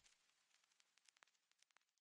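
Near silence: the faint fading tail of the background music, with a few soft ticks.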